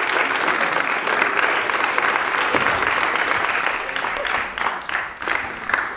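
Audience applauding, thick at first, then thinning into scattered claps over the last two seconds.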